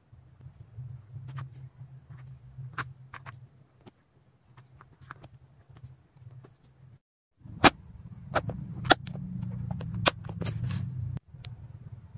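Irregular sharp clicks and taps of a diamond-painting drill pen setting resin drills onto the sticky canvas, sparse at first and louder and closer together in the second half, over a steady low hum.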